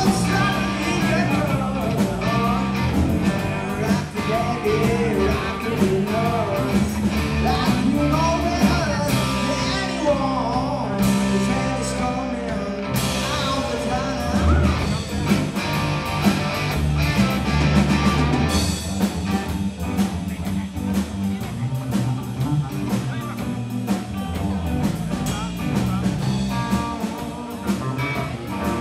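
Live blues-rock band playing: electric guitar, electric bass and a drum kit, with sung vocals over them.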